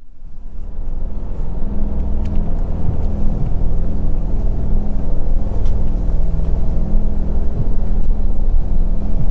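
A steady low rumble, fading in over about the first second.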